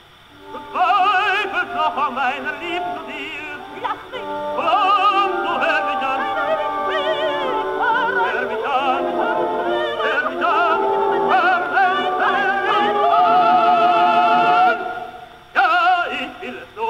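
Operatic singing with wide vibrato on held notes over orchestral accompaniment, from a 1908 acoustic recording with the treble cut off sharply above the voice. The music eases in after a brief dip at the start and breaks off shortly before the end.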